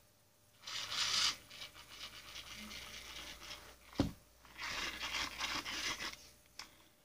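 Scratching and rustling on fabric or carpet close to the microphone, in two long spells, with a single knock about four seconds in.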